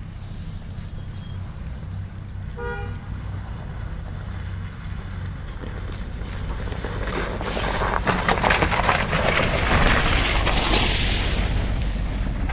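Off-road vehicle engine running, with a short car-horn toot about three seconds in. From about seven seconds a loud rushing noise full of rapid clicks builds up, then dies away near the end.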